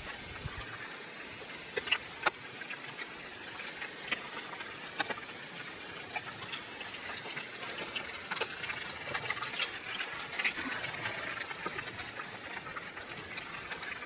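Diced potatoes and eggs sizzling in oil in a skillet over a wood fire: a steady frying hiss with scattered sharp pops.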